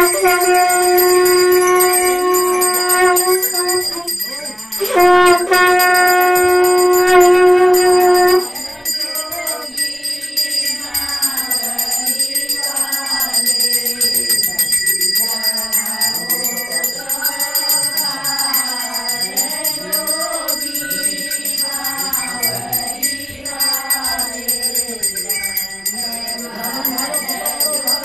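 Small bells ringing without a break. Over them come two long, steady blasts on a blown horn, the second starting about five seconds in and stopping suddenly near eight seconds. After that, a group of voices sings a wavering chant over the bells.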